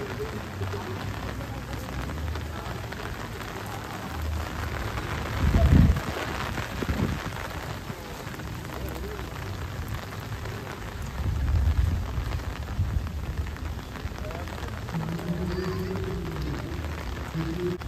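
Steady rain falling on wet pavement, with a low thump about six seconds in.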